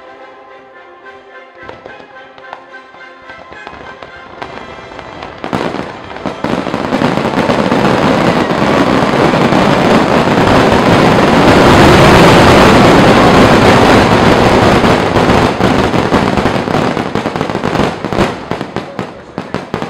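Music plays over scattered fireworks pops, then about five seconds in a dense fireworks finale barrage takes over. Many shells burst at once in a continuous loud crackling rumble that peaks midway and thins to separate bangs near the end.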